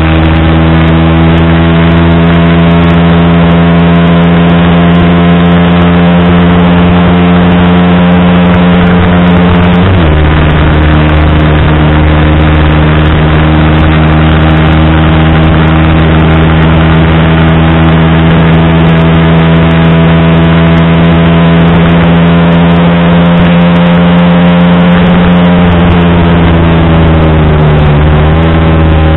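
Yamaha R15 V3's 155 cc single-cylinder engine running hard at high revs under full throttle, its pitch climbing slowly. The pitch drops sharply about ten seconds in as it shifts from fifth into sixth gear, then climbs again. Near the end the revs fall as the bike backs off and drops back to fifth.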